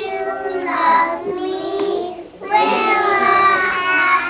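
A group of toddlers singing a song together: two sung phrases, with a brief break about two seconds in and the second phrase a little louder.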